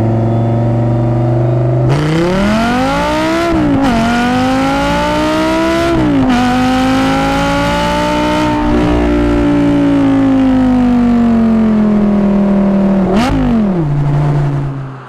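Audi R8's 5.2 FSI V10 through a Fabspeed valvetronic exhaust, heard from outside the car while driving. After about two seconds of low, steady running it pulls up in pitch twice, with a sharp drop at each upshift. A long stretch follows with the revs slowly rising and easing off, then a quick rev blip about thirteen seconds in before it settles back low.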